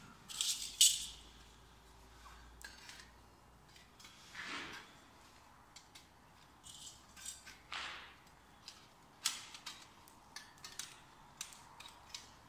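Metal plates of a flat-pack OneTigris firebox stove being handled and slotted together: scattered light metallic clinks and clicks, loudest about half a second in, with a couple of longer scrapes.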